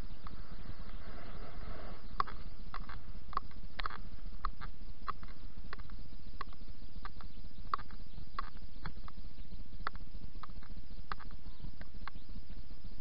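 A ridden horse walking on an arena surface: light, irregular clicks about twice a second from its steps and tack, over a steady low rumble.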